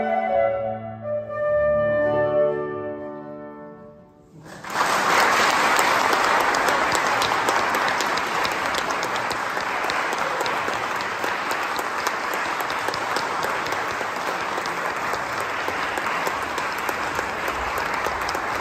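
Flute and piano finish the piece on held closing notes that fade away over about four seconds. About four and a half seconds in, audience applause starts suddenly and goes on steadily.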